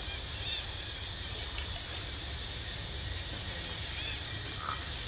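Outdoor ambience: a steady low rumble under a steady high drone, with a few faint short chirps and one slightly louder chirp near the end.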